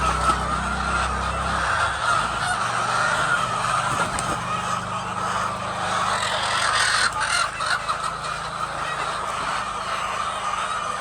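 A flock of many chickens calling at once, a dense steady chatter with no single bird standing out. A low machine hum underneath stops about two seconds in.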